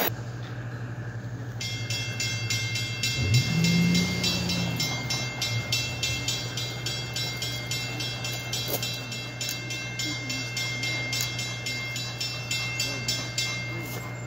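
Railroad grade-crossing warning bell ringing in a fast, even rhythm, starting about two seconds in, over a steady low hum. A low tone swells and fades around three to five seconds in.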